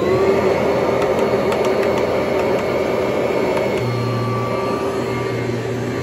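Kirby Heritage upright vacuum cleaner running steadily on a rug, its motor at full speed: a steady whine of several tones over rushing air. A few light ticks come about two seconds in, and a low hum joins partway through.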